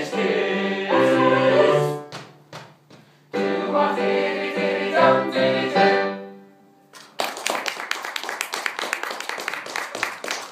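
Small mixed-voice a cappella choir holding the closing chords of a song, one chord ending about two seconds in and a last one held from about three to six seconds before it dies away. About seven seconds in, an audience breaks into applause.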